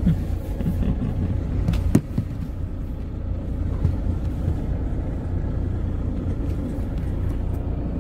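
Low, steady rumble of a car driving slowly over a rough, potholed dirt road, heard from inside the cabin, with a sharp knock about two seconds in as the car jolts.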